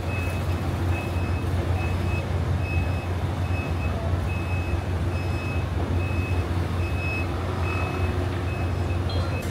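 A vehicle's reversing alarm beeping steadily, a short high beep a little more than once a second, over a steady low engine hum.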